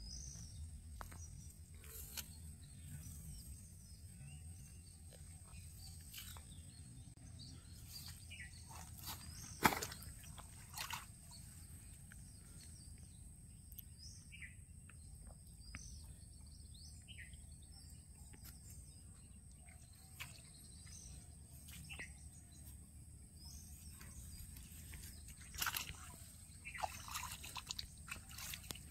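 Quiet outdoor ambience with scattered short bird chirps over a steady low rumble and a faint steady high whine. A few sharp knocks break in, the loudest about ten seconds in, and a cluster of brief noisy bursts comes near the end.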